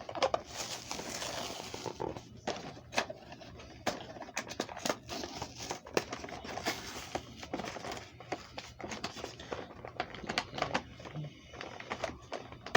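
Unboxing an action figure: rustling, crinkling and clicking of the cardboard box and plastic packaging being handled and opened, with many short irregular clicks and a longer rustle near the start.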